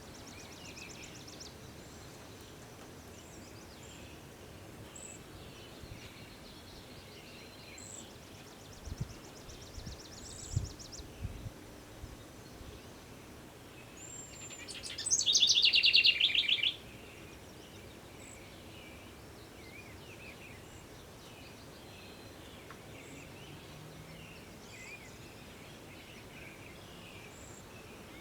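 Several birds calling and singing against a faint steady background hiss, with short rapid trills and scattered high chirps. The loudest is a rapid trill lasting about two seconds, a little past halfway, that opens with a falling whistle. A few low thumps come around ten seconds in.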